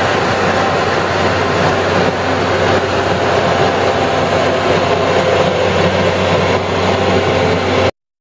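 McCloskey 621RE screener running: a steady mechanical din with a constant low engine hum beneath. It cuts off abruptly near the end.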